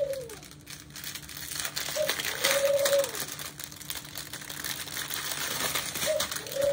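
Foil and plastic bags of diamond-painting drills crinkling as they are handled and sorted, louder about a third of the way in. A soft rising-and-falling tone sounds three times in the background.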